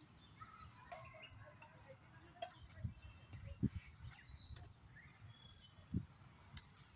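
Faint outdoor background with a few soft, scattered knocks and taps.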